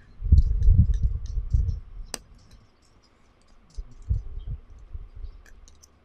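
Small metallic clicks and ticks of a precision screwdriver backing out a tiny screw from a smartphone's inner frame, with dull low bumps of the phone and hands being handled, loudest in the first two seconds. One sharp click about two seconds in.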